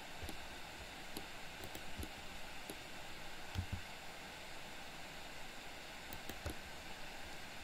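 Steady faint hiss of room and microphone noise with scattered soft clicks and a few dull low knocks from a computer mouse and keyboard in use.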